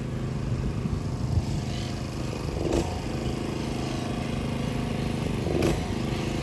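A motor engine running steadily at an even pitch, with two brief thuds, one about a third of the way in and one near the end.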